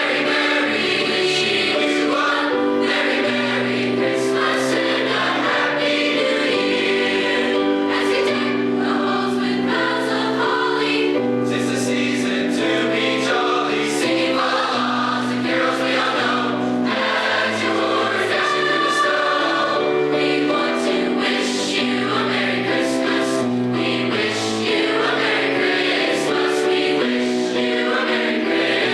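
High school choir singing a Christmas song, with several voice parts holding sustained chords that change every second or so.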